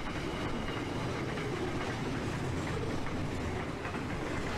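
Freight wagons loaded with steel coils rolling past, a steady rumble of steel wheels on rail with faint clicks.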